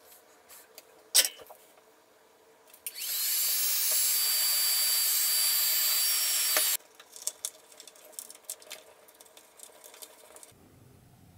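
Handheld heat gun blowing hot air onto heat-shrink tubing on soldered wires: its fan comes on with a rising whine about three seconds in, runs steadily for nearly four seconds, then winds down as it is switched off. A sharp click comes before it, and light handling clicks follow.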